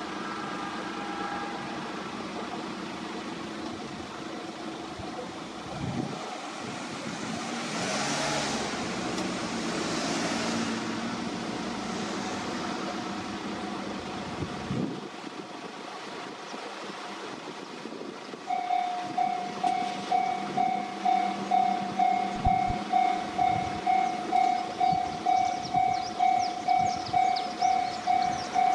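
A passing vehicle rises and fades about a quarter of the way in, then a level crossing warning alarm starts about two-thirds in and rings on steadily, a loud repeating ding about twice a second.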